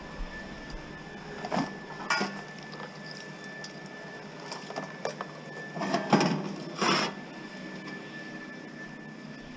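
Scrap metal being picked through and handled: a few light metallic clinks and scrapes, with the loudest cluster about six to seven seconds in.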